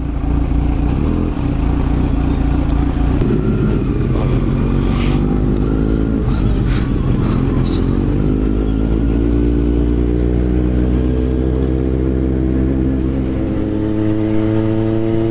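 Kawasaki Z900's inline-four engine pulling away and accelerating through the gears, its pitch climbing in each gear and dropping back at the upshifts.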